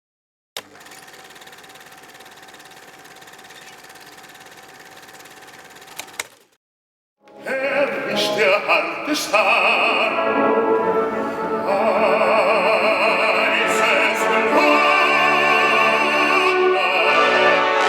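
A faint steady hum with a couple of clicks, a short silence, then from about seven seconds in an operatic voice singing with wide vibrato over an orchestra.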